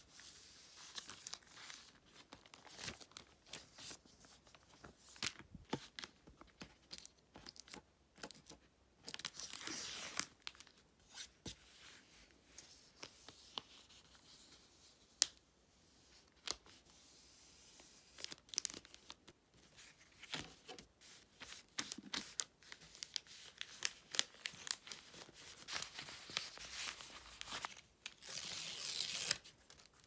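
Paper and card being handled while packing an order: rustling, creasing and sliding of sheets, with many small crackles and two longer rustles, one about ten seconds in and one near the end.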